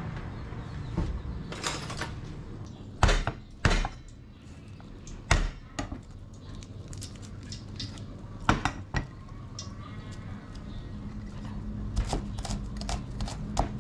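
Cleaver knocking on a wooden chopping board while cutting garlic cloves: a few separate heavy knocks, then a quick run of chops near the end.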